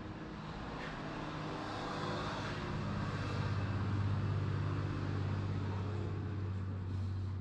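A motor vehicle going by on the street outside, its low engine hum swelling to its loudest in the middle and easing off near the end.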